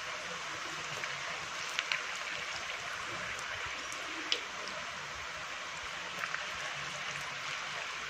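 Poha and potato fingers deep-frying in hot oil: a steady sizzling hiss with a few sharp crackles and pops.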